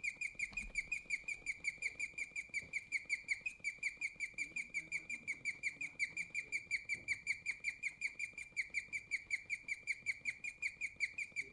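Guinea pig chirping: a rapid, unbroken run of high, bird-like chirps, about five or six a second, all on the same pitch.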